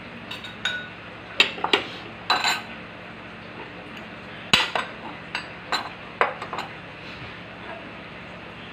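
A spoon clinking against a ceramic bowl and a stainless steel pan: a dozen or so sharp clinks in two clusters, the loudest about halfway through, over a steady background hiss.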